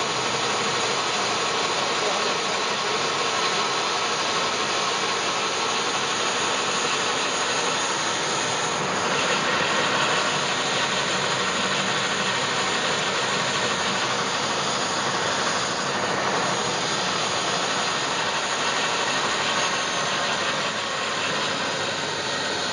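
Model gas turbine in a scale GT3 locomotive running steadily: an even, jet-like rush with a faint whine.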